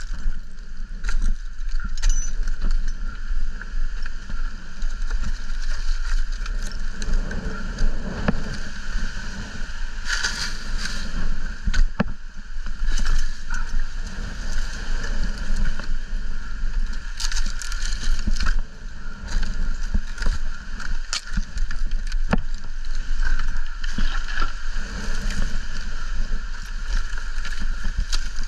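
Wind buffeting the microphone with a steady low rumble, over scattered knocks, scrapes and rustling of dry palm fronds and bark as a climber works up the trunk on a rope.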